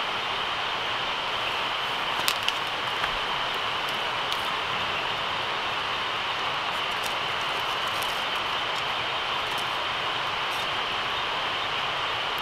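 Steady night-time insect chorus, a continuous high chirring, with a few sharp crackles and pops from a wood campfire being fed sticks, the loudest about two seconds in.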